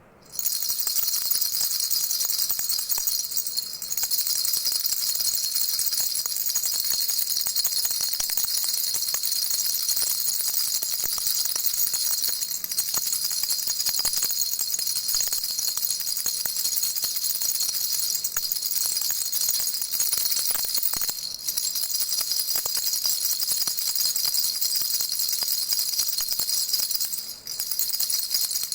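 Baby rattle with little bells shaken without a break, a steady high jingling that eases briefly a few times.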